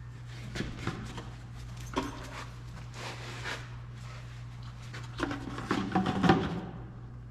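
Metal parts and hand tools knocking and clinking during work on a tractor transfer case, with a denser burst of clanking about five seconds in. A steady low hum runs underneath.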